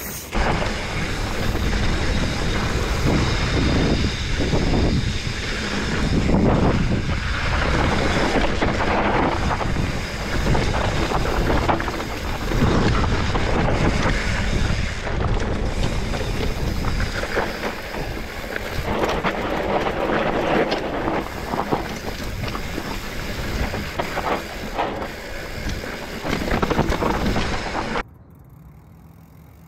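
Wind buffeting the microphone of a handlebar-mounted camera on a mountain bike descending a loose dirt trail, mixed with the bike rattling and knocking over bumps. It stops abruptly near the end.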